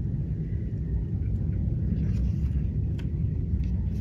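Steady low background rumble, with a few faint paper clicks and rustles near the end as a picture-book page is turned.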